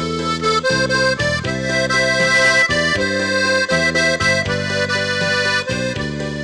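Instrumental background music: a tune of held chords that change about every half second.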